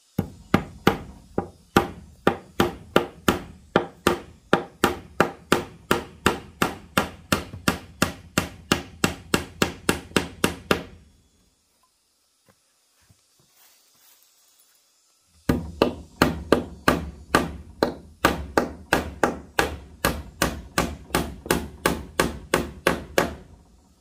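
Hammer driving nails into wooden planks, rapid even blows at about four a second. It strikes for about eleven seconds, stops for a few seconds, then strikes again for about eight seconds.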